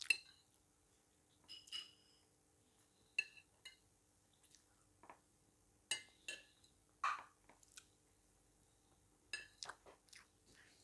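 Metal spoon clinking and scraping against a plate while scooping macaroni: a string of short, sharp clinks spaced a second or so apart, with soft chewing between them.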